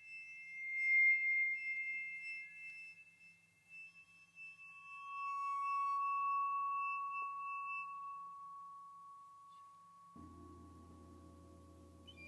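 Contemporary piccolo-and-percussion music of long held, pure high tones. Two high notes sound together, one swelling loudly about a second in. A lower clear note enters around four seconds, swells and slowly fades. Near the end a low, many-layered held sound comes in beneath it.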